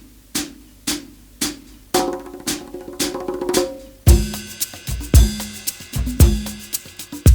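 Background music with a steady drum beat, about two hits a second. Melodic notes join about two seconds in, and a heavy kick drum and fuller band come in about four seconds in.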